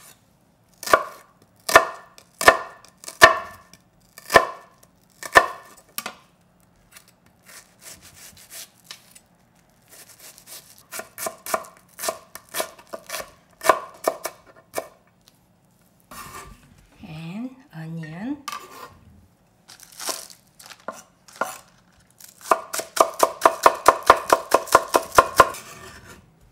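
Chef's knife chopping onion on a wooden cutting board: slow single cuts at first, then quicker runs of dicing strokes. Near the end comes a fast, loud run of rapid chops through green onion.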